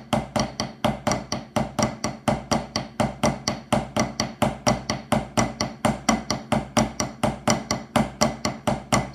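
Drumsticks playing Swiss Army triplets, left hand leading, as an even run of sixteenth notes at about five strokes a second (80 BPM), with a flam opening each group of three.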